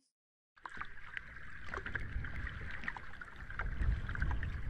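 Sea surf with wind rumbling on the microphone, starting about half a second in, with faint scattered ticks.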